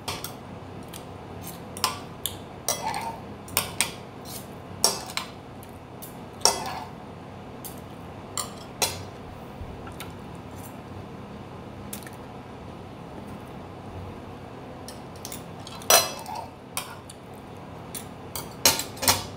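Metal fork and knife clinking and scraping against a dinner plate while eating: separate sharp clinks every second or two, with a quick run of several near the end.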